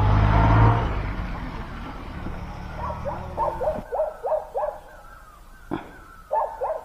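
A motorcycle engine is loud at first and fades away over the first couple of seconds. Then a dog yips in quick runs of short rising calls, several a second, with one sharp knock shortly before the last run.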